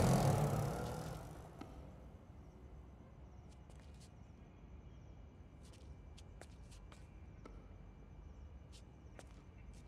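An auto-rickshaw's engine fades away over the first two seconds as it drives off. After that it is quiet, with faint, scattered light clicks.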